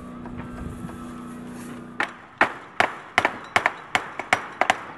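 A steady low hum, then from about two seconds in a quick, uneven run of sharp hammer blows, two hammers striking in turn at about four blows a second.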